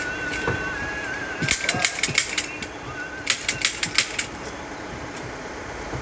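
Hand-held upholstery staple gun firing in two quick runs of sharp clicks, driving staples through the felt covering of a sofa piece: about seven shots in the first run, then about six more a second later.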